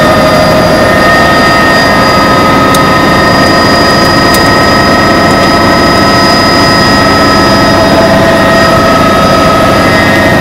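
Helicopter turbine engine and rotor heard from inside the cabin: a loud, steady whine of several held tones over a constant rumble.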